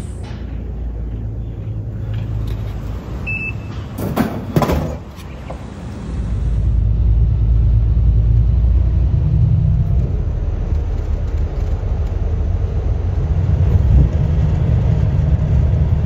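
Steady low rumble of city road traffic, becoming louder and fuller about six seconds in. A short high beep comes about three seconds in, and a brief noisy burst just after four seconds.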